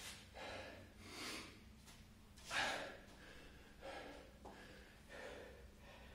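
A man breathing hard, one heavy breath about every second and a half, the loudest about two and a half seconds in: catching his breath after a set of 25 burpees.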